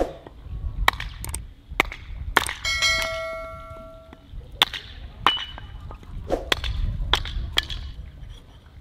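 A hatchet chopping on a wooden chopping block, splitting a log into kindling: about nine sharp, irregularly spaced chops. A few seconds in, one stroke leaves a brief clear ringing tone.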